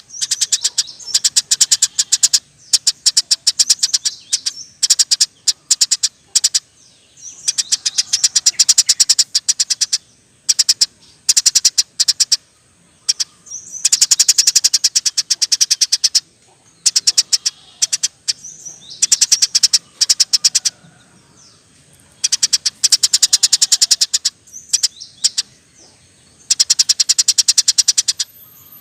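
Eurasian tree sparrow chirping in fast rolling trills, a rapid run of high chirps in bouts of one to three seconds with short pauses between them.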